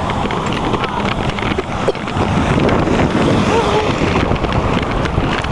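Wind buffeting the camera's microphone in a loud, steady rumble, over floodwater rushing along a street gutter.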